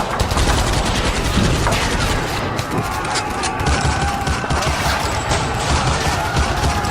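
World War II battle sound effect: dense, continuous rifle and machine-gun fire, many overlapping shots, over a steady low rumble.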